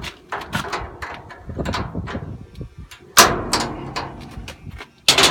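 A series of sharp metallic knocks and clunks on a pad-mounted transformer's steel compartment as the switch and the test-lead clips on the bushings are handled. The two loudest come about three seconds in and just before the end.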